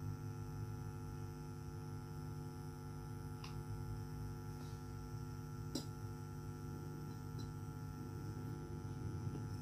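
Steady mains hum from an old powered active speaker, switched on and idle with no music playing yet. A couple of faint clicks come through about a third and two thirds of the way in.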